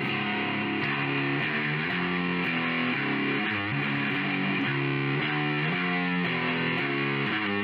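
Outro music: guitar music with a steady beat, chords changing about every half second.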